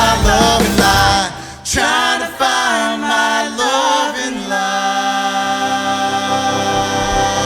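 Live country band music: the full band stops abruptly about a second in, leaving singing voices with little accompaniment that end on a long held note.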